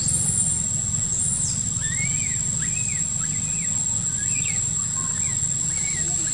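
Outdoor ambience: a steady high-pitched insect drone over a constant low rumble, with a run of about half a dozen short rising-and-falling chirps in the middle and a couple of higher falling whistles near the start.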